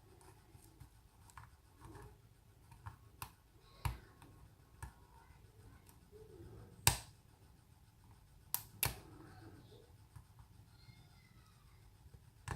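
Scattered small metallic clicks and ticks of a hook pick and tension wrench working the pins of a kik cylinder lock. The sharpest clicks come about four seconds in, about seven seconds in, and twice in quick succession near nine seconds.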